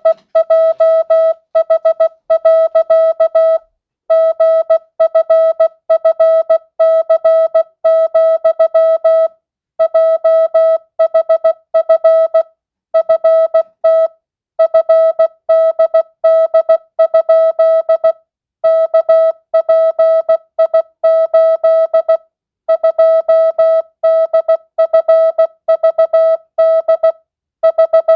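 Morse code practice tone sending random letters in words of mixed length at 16 words per minute, non-Farnsworth. It is one steady mid-pitched beep keyed in dots and dashes, with a short pause between words every few seconds.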